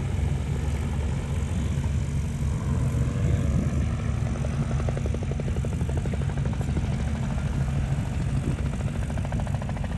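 Magni M24 Orion gyroplane flying a pass, its engine and pusher propeller droning steadily, with a rapid fluttering beat coming in about halfway through.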